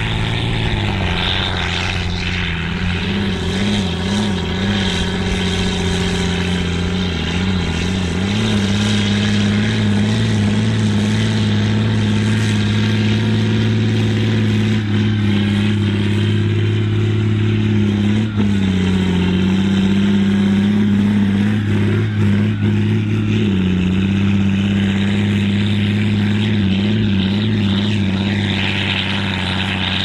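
John Deere 4240's turbocharged six-cylinder diesel running hard under heavy load while pulling a four-furrow plough, a steady deep drone whose pitch wavers slightly as the load changes.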